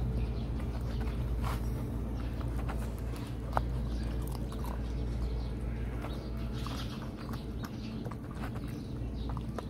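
A puppy eating from a plastic bowl: scattered small chewing and lapping clicks, with one sharper click about three and a half seconds in. A steady low hum runs underneath.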